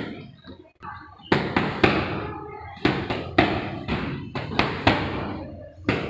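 Boxing gloves striking focus mitts in quick combinations: about eight or nine sharp smacks after a quieter first second, each echoing off concrete.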